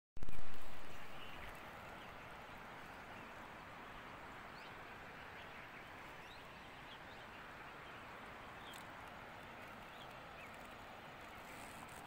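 Steady rushing of a waterfall, with faint short bird chirps scattered through it. A loud sound right at the start fades out over about a second.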